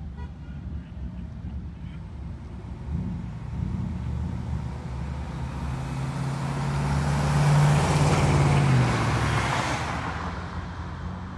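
A car driving past, its engine note and tyre noise growing louder to a peak about eight seconds in, then fading away. A low engine rumble runs underneath.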